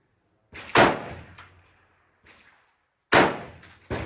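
Three loud gunshots, about a second in, just after three seconds and just before the end, each followed by a short echo, with a few fainter cracks between them.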